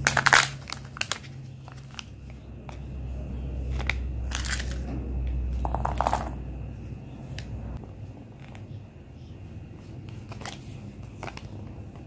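Handling sounds of a Kinder Joy toy capsule being opened: a sharp plastic click as the capsule comes apart right at the start, then scattered clicks and crinkling as small plastic toy parts and a folded paper instruction leaflet are handled and unfolded, over a steady low hum.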